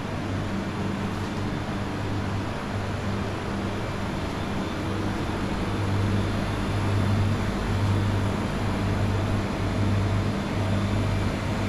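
A vehicle driving: a steady low engine hum that swells and fades, under a continuous rush of road noise.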